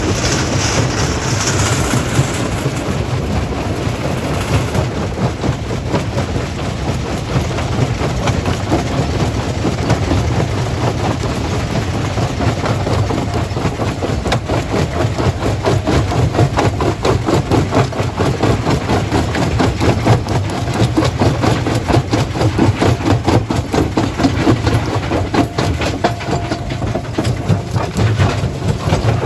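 Stone-crushing plant machinery running: a steady low engine drone under continuous dense clattering, a little busier in the second half.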